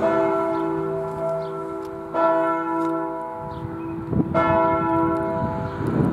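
Church tower bell struck slowly, a stroke about every two seconds, each ringing on as it fades before the next.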